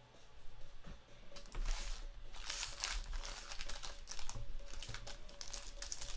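Foil wrappers of football trading card packs crinkling as the packs are picked up and handled. The crinkling starts about a second and a half in and goes on in irregular bursts.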